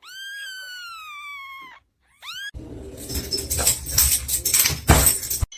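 A cat meowing in one long, slowly falling call, then a short rising meow. This is followed by about three seconds of loud scuffling clatter with several knocks, which is the loudest part.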